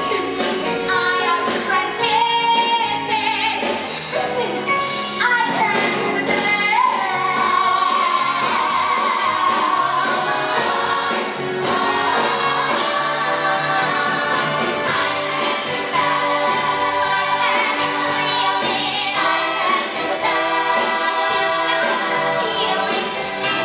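Live stage-musical cast singing as an ensemble over an orchestra, with wavering held notes.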